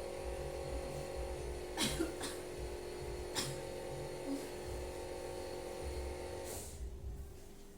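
A person giving a few short, sharp coughs after deep breaths: a forced effective cough meant to bring up phlegm. A steady hum sounds beneath them and cuts off near the end.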